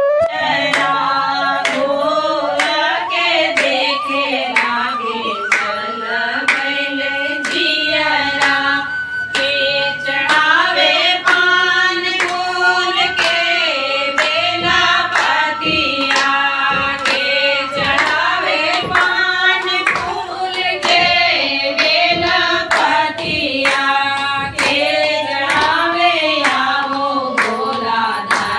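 A group of women singing a Bhojpuri Shiv bhajan together, keeping time with steady hand clapping.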